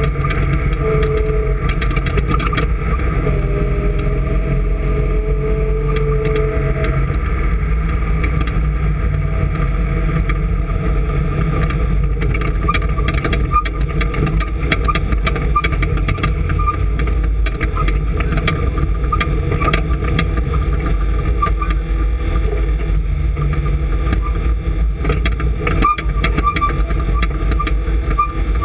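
An engine running steadily and loudly, with a few short clicks through it.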